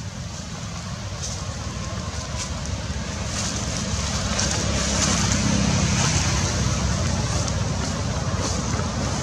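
Steady low rumble with hiss, growing louder toward the middle, with a few faint clicks early on.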